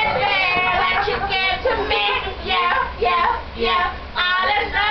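A woman singing unaccompanied in a high voice, the pitch wavering, in short phrases with brief breaks.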